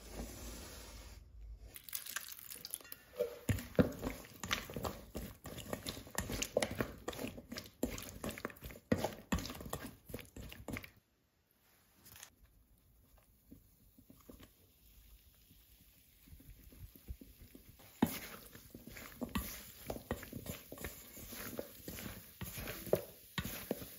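Knife cutting raw potatoes on a wooden cutting board, a quick irregular run of crunchy knocks. After a short silence midway, a spatula tosses floured potato wedges in a glass bowl, with a busy clatter and scrape of the wedges and the spatula against the glass.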